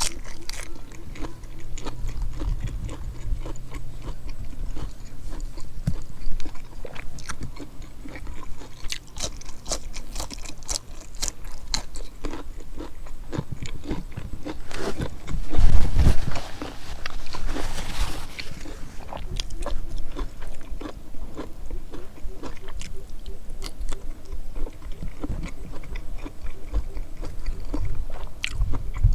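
A person chewing and crunching food, with many small clicks and smacks. About halfway through there is a louder low thump, followed by a brief breathy rush.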